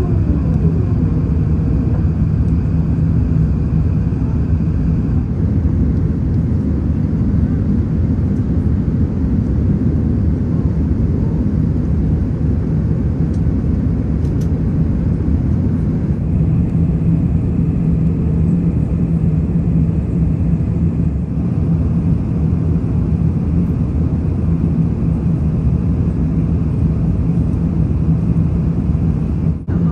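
An Airbus A380's jet engines and rushing airflow heard from inside the passenger cabin: a steady low roar with a faint hum, as the airliner climbs out after takeoff.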